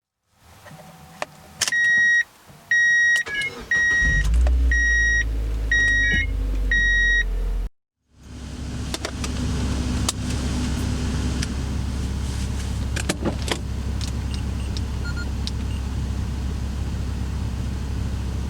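A car's warning chime beeps about once a second while the engine starts and runs with a low rumble. After a sudden cut, there is the steady engine and road noise of a car driving.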